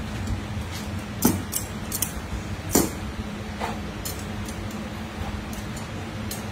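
Kitchen scissors snipping and clicking, with two louder sharp snaps about a second and a half apart and a few lighter clicks between and after, over a steady low hum.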